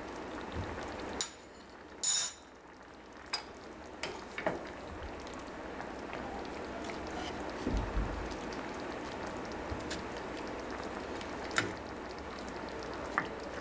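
A pan of chicken pieces and vegetables simmering in broth with a steady bubbling hiss, while a spoon stirs through it and knocks against the pan now and then, the sharpest clink about two seconds in.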